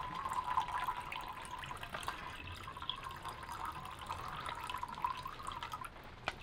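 Water pouring from an emergency drinking-water pouch into a stainless steel cup in a thin, steady trickle that thins out near the end, followed by a couple of light clicks.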